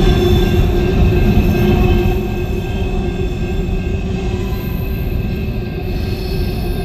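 Empty coal hopper cars rolling slowly around a curve, steel wheels squealing against the rails in several steady tones over a low rumble.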